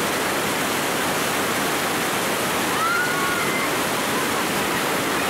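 Steady roar of white-water river rapids, the water rushing and churning around the rafts.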